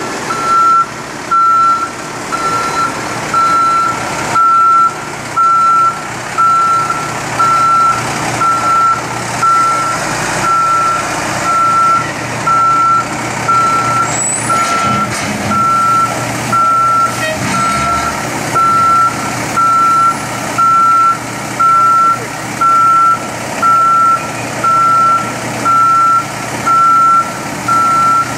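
Backup warning beeper sounding a single steady tone about once a second, over the low running of heavy diesel equipment.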